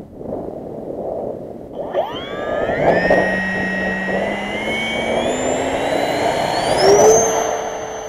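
Electric ducted fan of an RC Mirage 2000 model jet spooling up. From about two seconds in, a high whine with several pitches rises steadily and is loudest near the end, over heavy wind noise on the microphone.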